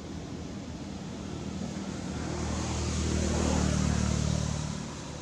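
A motor vehicle driving past: its engine hum and road noise swell from about two seconds in, peak near four seconds, then fade away.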